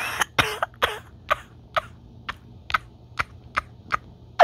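A three-month-old kitten sucking on its own nipple: wet smacking clicks in a steady rhythm, about two a second.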